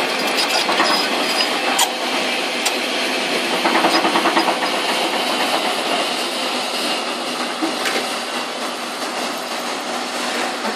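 Farmtrac 6055 diesel tractor engine working hard under a heavy trolley load, a steady, noisy engine sound that swells and pulses more loudly about four seconds in.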